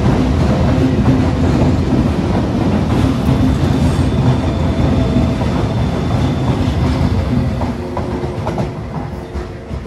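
Trenitalia high-speed electric trainset departing and pulling past, its wheels rumbling and clattering over the rail joints. The sound fades from about three-quarters of the way in as the rear of the train goes by.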